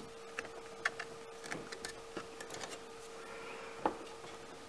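Scattered small metallic clicks and taps of needle-nose pliers bending a crimp connector and handling wire terminals on the back of a boat's switch panel, with a faint steady hum underneath.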